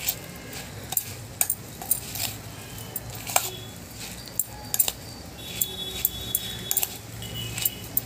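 Metal spoon stirring dry bhel (puffed rice, farsan and sev) in a stainless steel bowl: irregular clinks and scrapes of the spoon against the bowl, roughly one or two a second.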